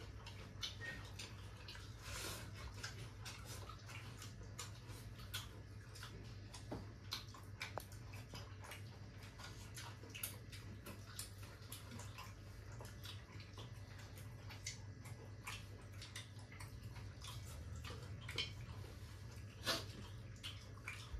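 Quiet sounds of people eating rice and curry by hand: irregular small clicks and smacks of chewing and of fingers working food on steel plates, over a steady low hum.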